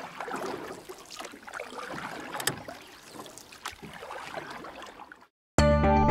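Splashing, water-like noise with a few soft knocks, fading out over about five seconds. After a short silence, strummed guitar music starts near the end.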